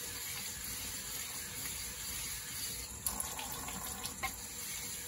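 Water running steadily from a tap into a sink, splashing over a whetstone and diamond lapping plate held in the stream, with a few light clicks about three and four seconds in.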